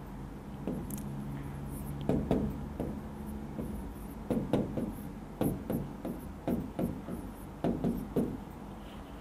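A pen tapping and scraping on the glass of an interactive touchscreen whiteboard during handwriting. Clusters of quick taps begin about two seconds in, over a low steady hum.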